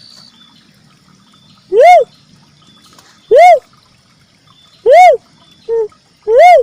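Ruddy cuckoo-dove lure call: loud hooting notes that rise and fall in pitch, repeated about every one and a half seconds, with a shorter, lower note slipped in before the last one.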